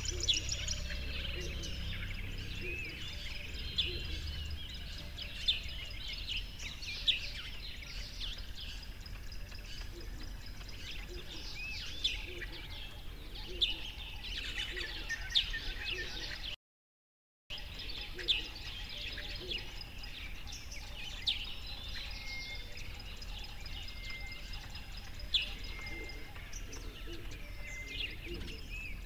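Many birds chirping and whistling in short, scattered calls over a faint background hiss. The sound cuts out for about a second a little past halfway.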